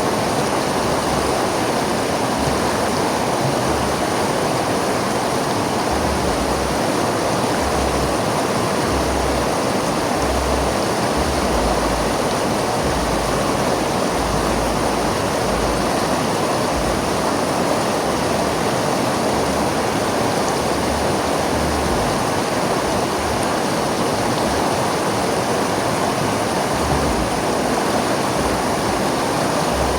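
River water flowing and rushing over rocks, a steady full rush with a low rumble that swells and fades.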